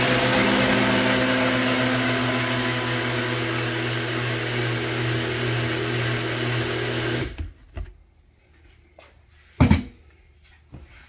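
Countertop blender motor running steadily as it blends a protein shake, then switching off about seven seconds in. A single thump follows a couple of seconds later.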